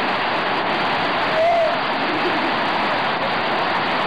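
Steady rush of running water, like a waterfall or fast stream close by, with a brief faint voice about one and a half seconds in.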